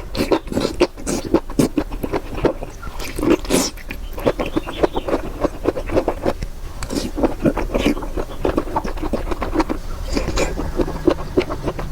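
Close-miked chewing and biting: a quick, irregular run of wet smacks and crunches.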